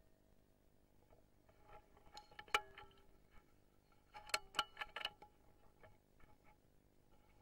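A run of small, sharp metallic clicks and ticks from a scoped rifle being handled, a few of them with a short ring. One click stands out about two and a half seconds in, and there is a tight cluster between four and five seconds.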